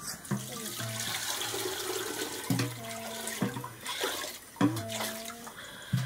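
Water poured from a large aluminium water vessel into a metal cooking pot, splashing steadily, with a few knocks of metal on metal and low hollow tones along the way.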